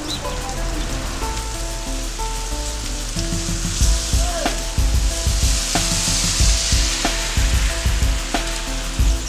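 Steady hiss of falling rain under a music track of held melody notes; a heavy bass beat with sharp percussion hits comes in about three seconds in.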